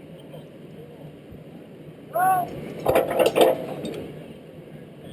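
Metal clanking from a backhoe at work: a short pitched squeal or call, then a quick run of sharp, ringing metallic clanks over a low steady engine hum.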